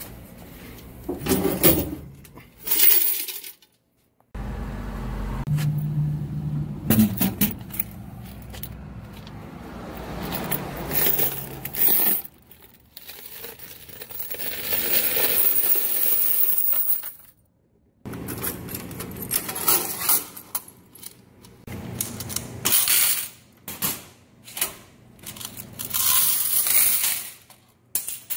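Quarters clattering and jingling as they are handled and poured, along with metal rattles of vending-machine doors and a coin drawer, in many short separate bursts broken off by sudden cuts.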